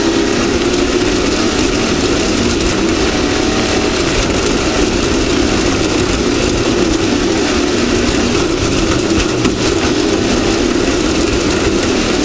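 Off-road race vehicle's engine running steadily at speed, loud and continuous, over a constant rushing noise.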